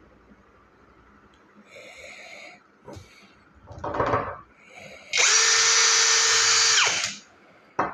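Cordless battery drill run in short bursts: a brief light spin, a click, a rougher loud burst, then about two seconds of steady high motor whine at full speed that winds down in pitch as the trigger is released. A sharp click follows near the end.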